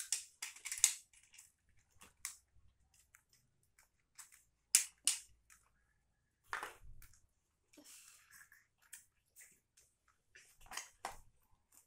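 Crackles and clicks of stiff clear plastic toy packaging and small plastic toys being handled, coming in short clusters a few seconds apart.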